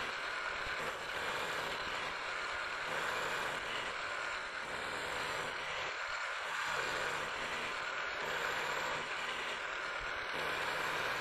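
Milling machine running with an end mill side-cutting an aluminium block, conventional milling, a tenth of an inch per pass: a steady cutting noise over the spindle motor.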